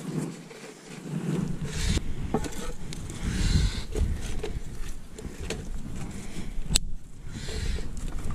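Uneven rumbling wind and handling noise on the microphone, with scattered clicks and crackles as thin kindling sticks are laid over burning paper in a metal fire pit.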